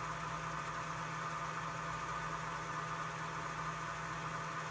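A steady electrical hum with a faint even hiss, unchanging throughout.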